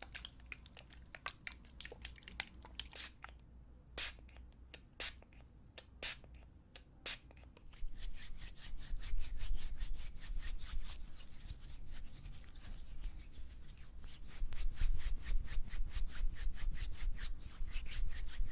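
Hands rubbing together close to the microphone, spreading disinfectant. Scattered soft clicks and taps for the first several seconds, then quick continuous rubbing strokes from about eight seconds in.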